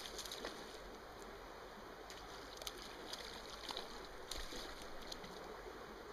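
Small stream flowing: a steady, fairly faint rush of water, with a few short light ticks scattered through it.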